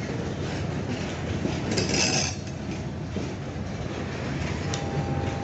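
Loaded freight train rolling past, its wagons rumbling and clattering over the rails, with a brief high-pitched screech about two seconds in.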